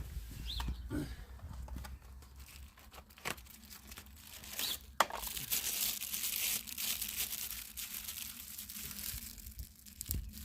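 Plastic packaging crinkling and tearing as it is unwrapped, with a few sharp clicks and a sharper snap about five seconds in, then steady crackly crinkling that stops near the end.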